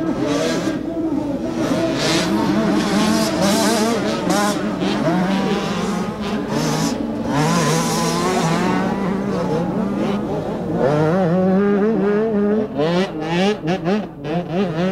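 Small 60cc two-stroke motocross bikes racing, their engines revving up and falling back again and again as the riders work the throttle through the dips and turns. More than one engine is heard at once.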